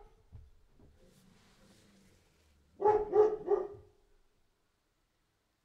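Dog barking: a quick run of three barks about three seconds in.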